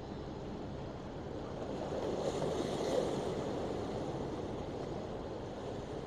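Steady wind and sea noise with a low rumble, swelling briefly about two seconds in. No pile hammer blows are heard.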